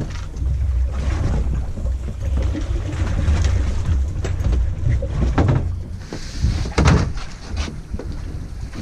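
Wind buffeting the microphone in a low, uneven rumble, with a couple of sharp knocks about five and a half and seven seconds in.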